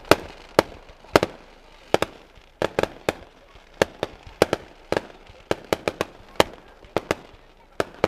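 Fireworks going off: a fast, irregular string of sharp bangs, about two a second.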